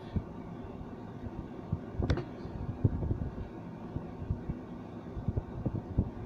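Pencil sketching on paper: soft, irregular low taps and scrapes of the strokes over a steady background hum, with one sharper click about two seconds in.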